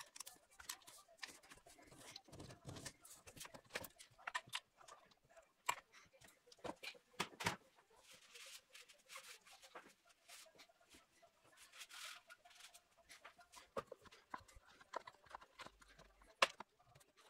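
Scattered faint clicks, taps and knocks of hand tools and metal parts being handled during engine work, irregular rather than rhythmic, with two short hissy rustles.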